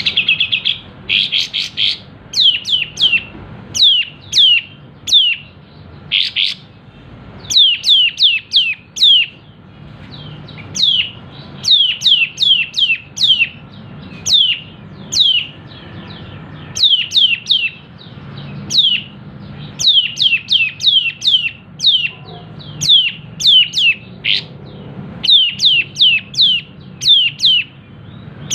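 Kapas tembak songbird singing hard: sharp, quickly falling notes fired in quick runs of two to four, again and again, over a faint low hum.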